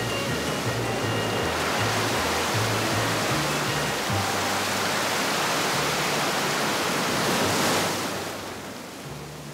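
Ocean surf rushing steadily, swelling and then fading about eight seconds in, over background music with a low bass line.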